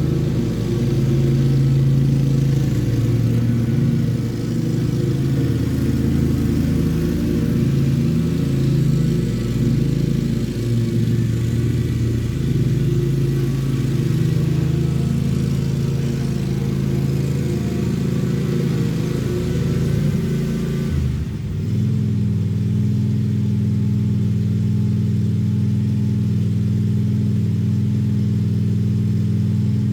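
Lawn mower's petrol engine running, its note wavering under changing load. About two-thirds of the way in it dips briefly, then settles to a steady, even speed.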